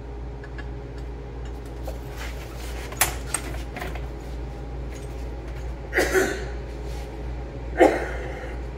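Steady low hum of a welding shop, with a few light metallic clanks and knocks about three seconds in, about six seconds in and near the end; no welding arc is heard.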